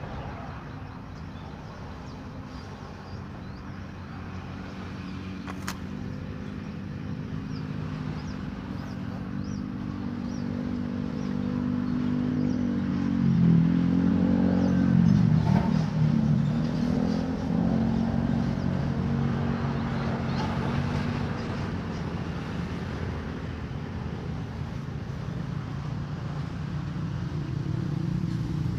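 A motor engine running, with a steady drone that swells louder about halfway through, its pitch dipping and rising briefly, then eases off and builds again near the end.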